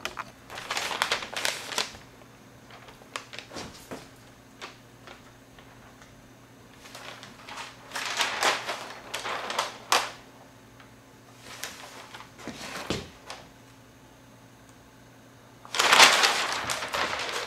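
Large sheets of drawing paper rustling and crinkling as they are handled and turned over. The sound comes in several bursts, the loudest near the end.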